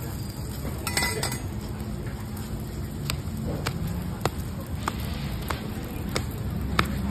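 Roti dough being flung and slapped against a steel counter as it is stretched: short sharp smacks about every half second over a steady low rumble, with a brief scrape about a second in.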